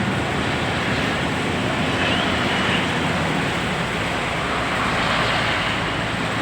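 Steady vehicle engine noise, even and unbroken, as from a bus idling with traffic around it.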